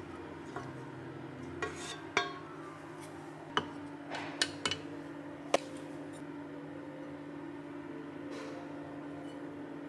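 Light clinks and taps of a pan and a wooden spatula against a ceramic serving dish as cooked bean sprouts are tipped in and arranged: about eight sharp clinks in the first half, then only a steady low hum.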